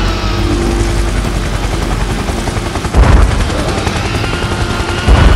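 Cartoon sound effects: a dense, loud rumbling and crackling noise, broken by two heavy booms, about three seconds in and again near the end.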